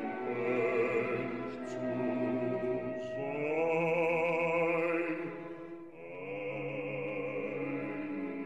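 A male opera singer singing long held notes with a wide vibrato, in two phrases with a short break about six seconds in.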